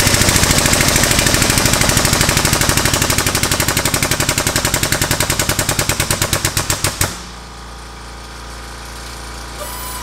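Air-driven pump of a 12-ton pneumatic/hydraulic bottle jack chattering in rapid, even pulses as it raises the ram to crush the end of a 2-inch steel EMT pipe flat. The pumping stops abruptly about seven seconds in, and a steady low hum carries on after it.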